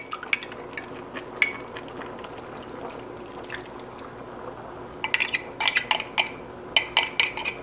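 Annatto powder diluted in water poured from a bowl into a pan of stewing pork innards and vegetables, a steady trickle and splash. Near the end comes a quick run of clinks and scrapes of a utensil.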